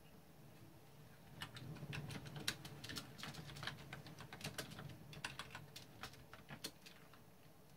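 Typing DOS commands on a computer keyboard: a quick run of key clicks lasting about five and a half seconds, over a faint steady hum.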